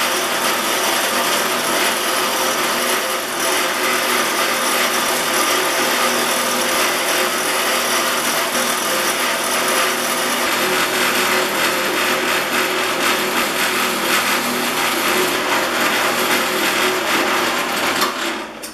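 Bench grinder with a fine wire wheel running steadily as small steel plane parts are held against it: a continuous scratching hiss over the motor's hum, wire-brushing rust off the parts. The sound drops away just before the end.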